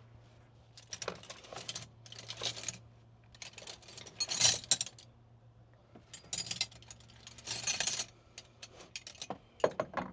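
Metal hand tools clinking and rattling against each other in several short bursts as they are picked through and sorted.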